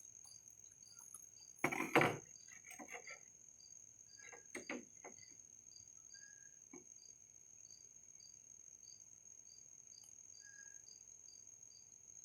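Crickets chirping steadily, about three high chirps a second over a continuous high insect buzz. About two seconds in there is one loud knock, followed by a few lighter clicks and taps.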